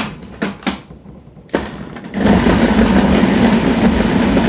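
A few plastic clicks and knocks from the food processor's bowl and lid, then about two seconds in the food processor's motor starts and runs steadily, its S blade kneading a ball of bread dough.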